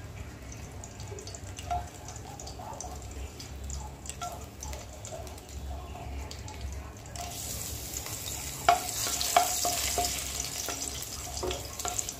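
Whole spices (dried red chillies, cinnamon and cardamom) sizzling in hot oil in a kadai as they are tempered; the sizzle turns much louder and brighter about seven seconds in. A few sharp clicks of a wooden spatula against the pan follow as it starts stirring.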